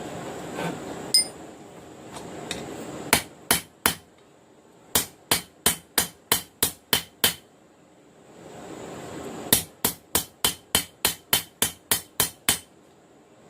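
Blacksmith's hand hammer striking steel on an anvil in quick runs of blows, each with a bright metallic ring: one blow, then three, then about eight, then about eleven, with a steady hiss rising in the pauses between them.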